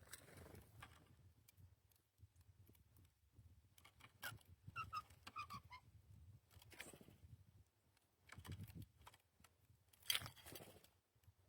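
Faint short calls of a small songbird, a quick run of brief pitched notes about five seconds in, with light clicks and taps and a few soft rustling bursts around them.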